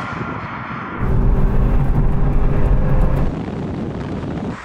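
Cars driving on a runway, engines running at low speed. About a second in, a heavy low rumble comes in and lasts a couple of seconds before dropping back.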